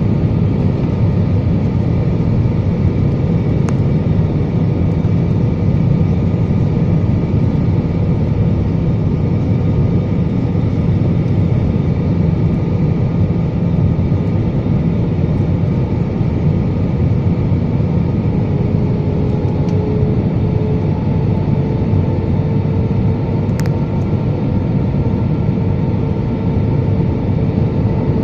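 Airliner cabin noise on descent: the steady, deep rush of jet engines and airflow heard from a seat over the wing. About two-thirds of the way through, a faint whine comes in and rises slightly in pitch.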